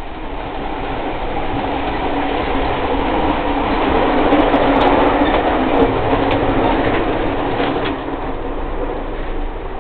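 Running noise of a moving Amtrak passenger train heard from inside: a steady rumble and rattle that grows louder in the middle while passing through the vestibule between two coaches, with a few sharp clicks, then eases off in the next car.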